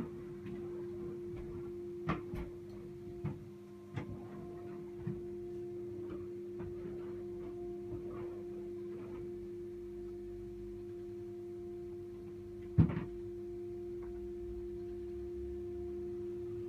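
A steady hum that carries into the flat, with scattered knocks and thuds over it; the loudest knock comes about thirteen seconds in.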